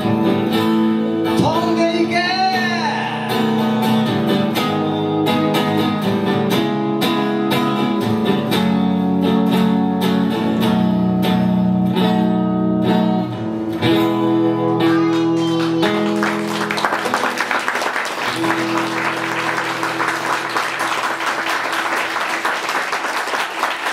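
Strummed archtop guitar and a male singer closing a song live, with a long held final chord. About sixteen seconds in, audience applause breaks out over the ringing chord and goes on to the end.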